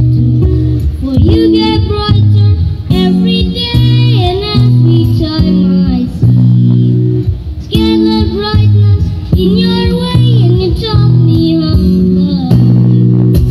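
Live acoustic folk song: a singing voice carries the melody in phrases over strummed acoustic guitar.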